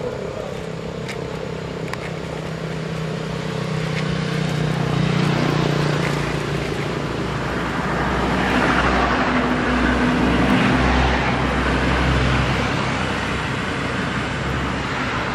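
Road traffic going by: a low engine hum with noise that swells twice as vehicles pass, the louder swell in the second half.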